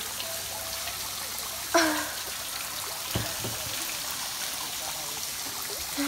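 Water running steadily in a stream, an even rushing hiss, with one short sharp sound about two seconds in.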